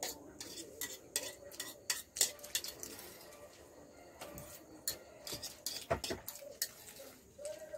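Metal forks clicking and scraping against disposable plates as two people eat chow mein fast, in many short irregular clinks.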